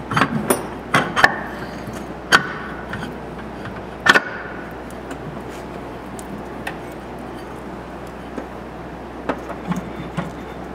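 Metal clinks and knocks of clutch parts and tools being handled as the Yamaha Rhino's secondary (driven) clutch is fitted back on: several in the first couple of seconds, a loudest ringing clank about four seconds in, then a few light taps near the end.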